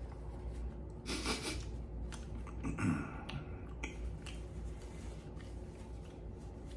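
A man breathing out or sniffing sharply twice, about a second in and near three seconds, with a few faint clicks, while his mouth burns from a very hot chili sauce.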